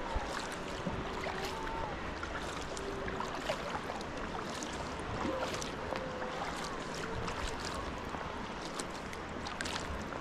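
Sea kayak paddle strokes on calm sea: water splashing and dripping off the blades in many small ticks over a steady wash of water and wind. Several faint, drawn-out wavering moans come from grey seals on the shore.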